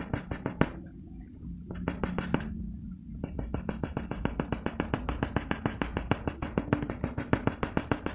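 Graphite pencil shading on paper: quick, rhythmic back-and-forth strokes, about seven a second, that break off twice briefly in the first three seconds.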